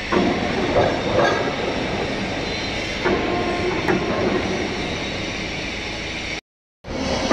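Overhead crane carrying a large steel-clad asphalt plant module: a steady mechanical rumble with several metal clanks and short squeals.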